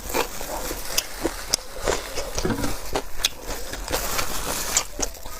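Close-miked wet chewing and lip-smacking while eating braised pork knuckle, with irregular sharp smacks and clicks several times a second.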